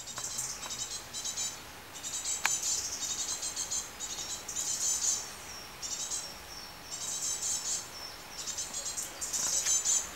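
Insects chirping in repeated high trills about a second long, each made of rapid pulses.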